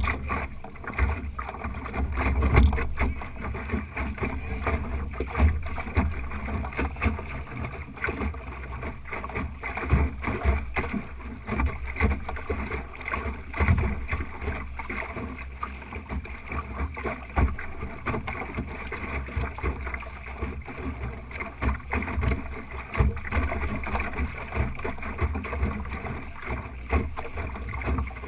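Water slapping and splashing against the hull of an Optimist sailing dinghy under way, with frequent irregular knocks and a low wind rumble on the microphone.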